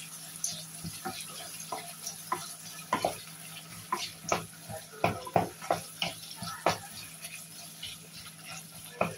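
Wooden spoon stirring onions and garlic frying in oil in a pot: irregular light knocks and scrapes of the spoon against the pot over a faint steady sizzle.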